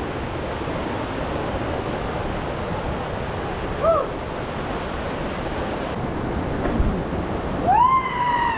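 Steady rush of flowing water, with a short high call about four seconds in and a longer call near the end that rises and then holds its pitch.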